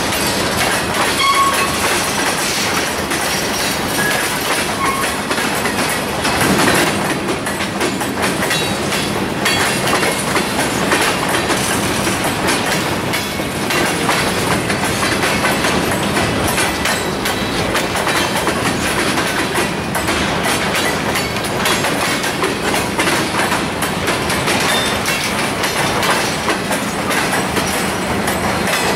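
Freight train of covered hopper cars rolling past at steady speed, its wheels clacking over the rail joints in a continuous rumble, with a few short high-pitched squeaks in the first few seconds.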